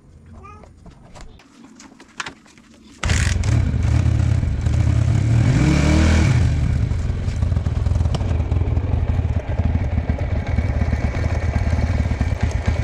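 Bajaj Pulsar 150's single-cylinder four-stroke engine starting about three seconds in, freshly refilled with oil. It revs up once and falls back, then settles into a steady idle.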